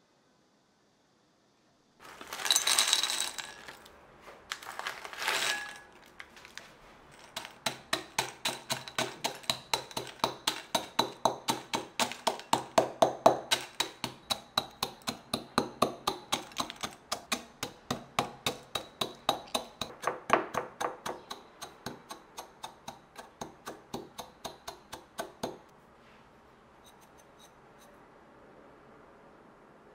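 Two short rustling scrapes, then a long run of steady hard taps or clicks from kitchen food preparation, about three a second, stopping a few seconds before the end.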